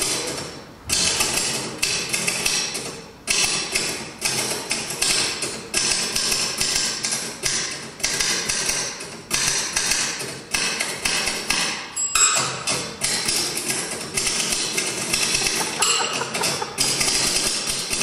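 Typewriter keys clacking in quick runs of strikes, played as a percussion instrument, with brief gaps between the runs and a couple of short high rings in the second half.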